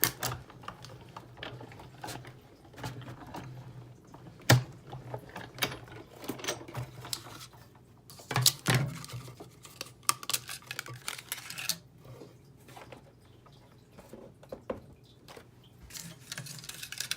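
Hand-cranked Big Shot die-cutting machine being turned to run the cutting plates and die through, with irregular clicks and knocks as the plates and paper are handled. The sharpest knocks come about four and a half and eight and a half seconds in.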